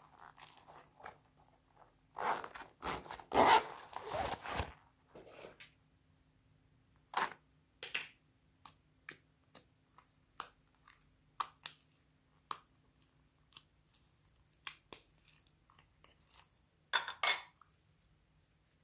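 Hands squeezing and stretching slime, making a string of short sticky clicks and pops. A longer, louder crinkling rustle comes about two seconds in, and another near the end.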